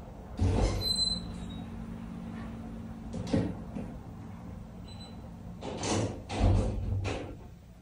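Several knocks and thuds, about four separate hits plus a quick cluster near the end, with a short high squeak about a second in.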